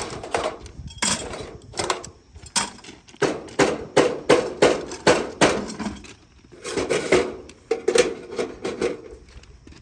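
Hammer blows in two quick runs, about three strikes a second with a short pause between, each strike leaving a brief ring.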